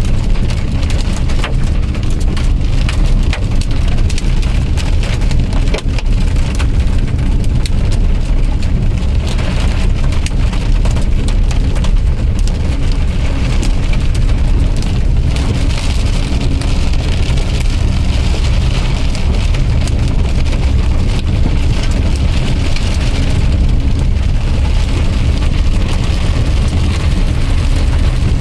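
Hail and rain drumming on a Maruti Suzuki Wagon R as it drives, with many sharp ticks of hailstones on the body and glass, densest in the first few seconds, over the car's steady low road and engine rumble heard from inside the cabin.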